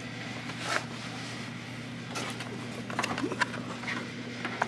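Faint handling noises: a few light clicks and plastic knocks as a hose is worked off a car's power steering fluid reservoir and a plastic drip tray is set under it, over a steady low hum.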